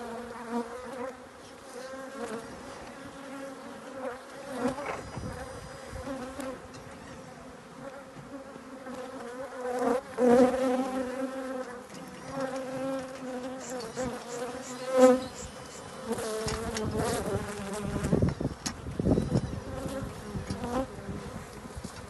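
Honeybees buzzing in numbers around open hives, a steady wavering hum. Toward the end, scattered knocks and rustles as hives are handled.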